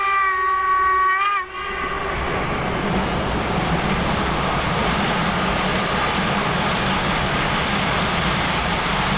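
Steam whistle of a ČSD class 464.2 'Rosnička' steam locomotive sounding one steady note. The note wavers and cuts off about a second and a half in, and then comes the steady noise of the locomotive and its passenger train running past.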